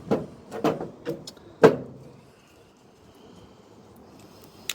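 A few sharp clicks and knocks of small metal scrap parts being handled, the loudest about one and a half seconds in, followed by a quiet stretch with a last small click near the end.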